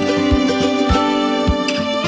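Instrumental background music: sustained melodic notes over a steady low drum beat, about one beat every 0.6 seconds.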